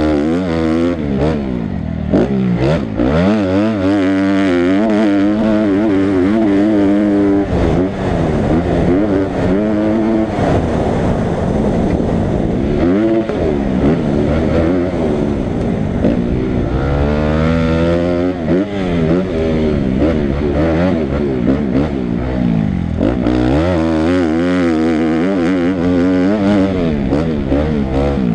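Motocross dirt bike engine heard close up from on board. It revs up and drops back over and over as the bike accelerates, shifts and rolls off around the track.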